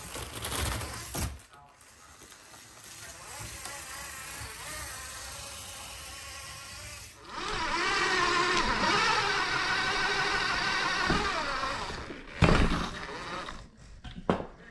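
Electric drive motor and gears of a radio-controlled rock crawler whining as it crawls, the pitch wavering with the throttle and loudest in the middle. Two sharp knocks near the end as the truck bumps over the course.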